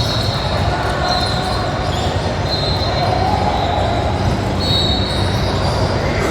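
Basketball game sound in a gym: a ball bouncing on the court over a steady din of voices echoing in the large hall.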